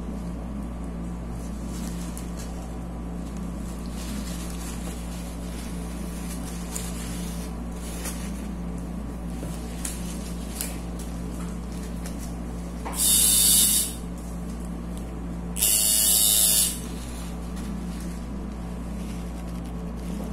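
Two hissing squirts from a spray bottle, the second a little longer, about two-thirds of the way through, over a steady low electrical hum.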